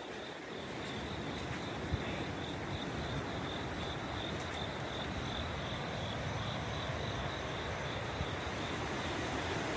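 Insects chirping in an even, pulsing rhythm over a steady rushing hiss and a low rumble, with a single short knock about two seconds in.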